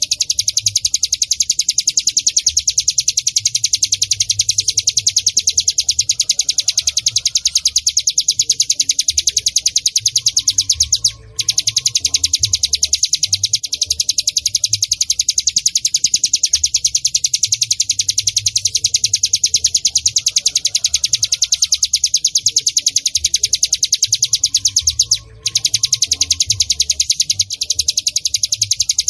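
Ciblek gunung (a mountain prinia) singing a rapid, unbroken run of high, repeated chirps, breaking off twice for a moment.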